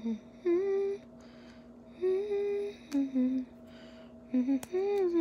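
A woman humming a tune with closed lips, in short gliding phrases, with two small clicks partway through.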